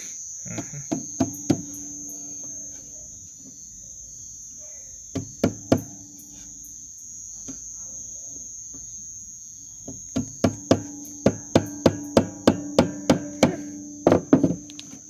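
Light hammer taps on a small nail in a wooden beehive frame, in a few short groups and then a quick run of about three taps a second. Crickets chirp steadily throughout, over a low hum.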